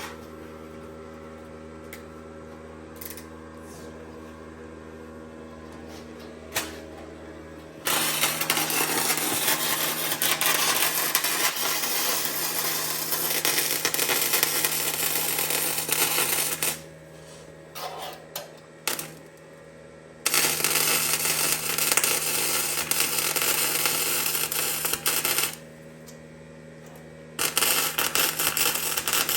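Flux-core wire-feed welder arc crackling and sizzling in three long runs: the first starts about eight seconds in, and the others follow after short pauses. A steady hum fills the quieter stretches.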